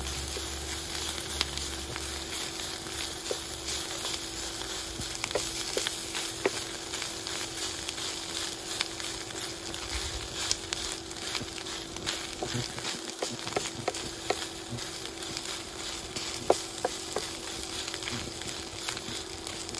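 Sliced beef sizzling as it dry-roasts in a stainless steel frying pan, its moisture cooking off, with scattered taps and scrapes of a wooden spatula stirring it. A steady hum runs underneath.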